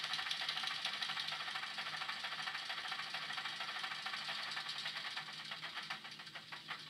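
Digital (DCC) sound decoder playing a Kö I diesel shunter sound file through the small speaker of a model Ruston & Hornsby 88DS locomotive: a rough, mechanical small diesel idling with a rapid knocking beat. Near the end the beat slows and fades away.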